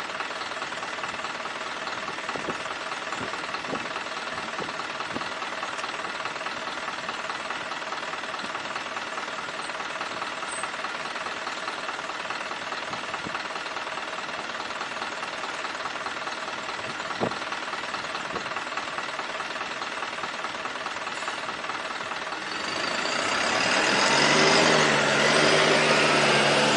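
Street traffic: a vehicle engine runs steadily with a few faint clicks. About 23 seconds in, a louder engine comes up close and stays loud to the end.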